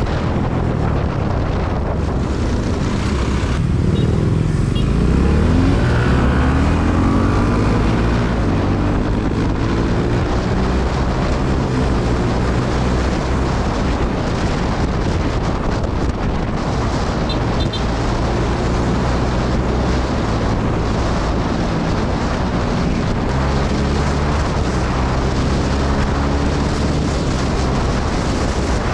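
Suzuki Gixxer 250's single-cylinder engine running under way, revs climbing about four seconds in as it accelerates, then holding steady at cruising speed, with wind rushing over the microphone.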